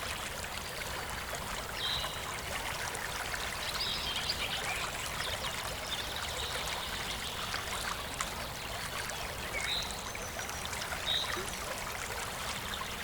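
A river flowing steadily over stones, with a campfire crackling in light ticks. A few brief high notes from a European robin stand out over the water now and then.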